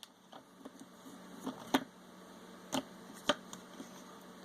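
Light clicks and taps from a plastic model motorcycle being handled, with three sharper clicks in the second half over a faint steady hum.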